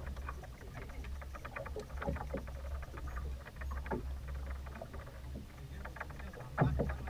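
Choppy waves slapping irregularly against the hull of a small boat, with one louder slap near the end, over a low steady rumble.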